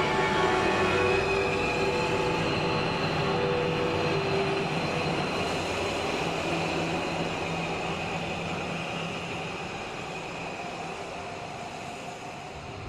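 Sustained instrumental music: held tones over a dense, noisy wash, fading gradually.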